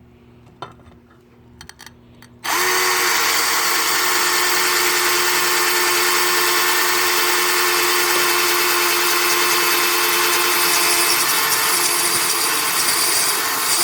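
A few light handling clicks, then about two and a half seconds in an electric drill starts and runs steadily with a steady whine. It is driving a 1/4-inch Black & Decker glass-and-tile bit into tile.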